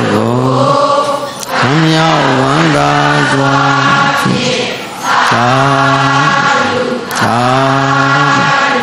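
Buddhist devotional chanting by voices in unison: a series of held, steady-pitched phrases, each a second or two long, with short breaks for breath between them.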